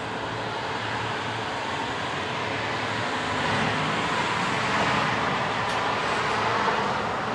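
Front-load garbage truck's engine revving to drive its hydraulics as the fork arms lift a dumpster up over the cab. The noise swells louder through the middle of the lift.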